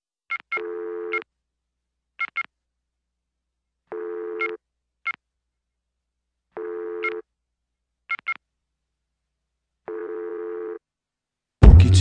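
Telephone sounds opening a song: short high keypad-style beeps, often in pairs, alternate with longer low ringing tones of about two-thirds of a second, roughly every three seconds. The band's music crashes in loudly just before the end.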